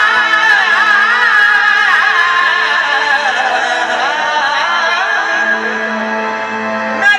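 Qawwali singing: a male lead voice sings a wavering, ornamented melodic line over a harmonium. About halfway through, the voice drops out and the harmonium's held notes carry on.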